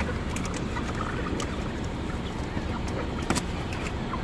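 Six-week-old broiler chickens crammed in transport crates, making short, scattered clucks and chirps over a steady low rumble, with a sharp click about three seconds in.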